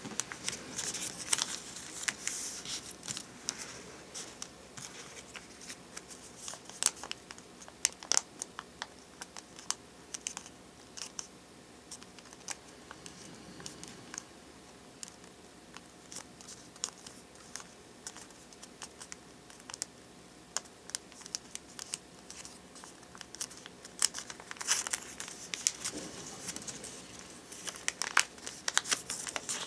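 A sheet of origami paper being folded and creased by hand: crinkling and crisp crackles of stiff paper. The crackles come thick and fast in the first few seconds and again near the end, sparser in between.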